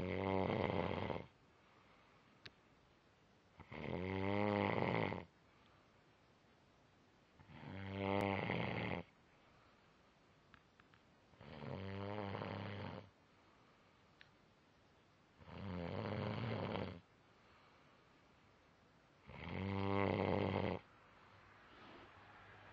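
A man snoring in his sleep: six drawn-out snores about every four seconds, each lasting about a second and a half, with quiet between them.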